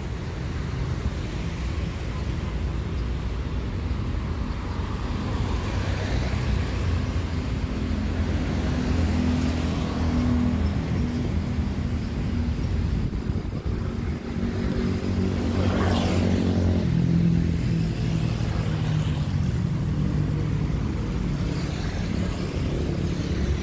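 Steady rumble of motor vehicles and road traffic, with engine tones that shift up and down in pitch and a brief louder passing sound about sixteen seconds in.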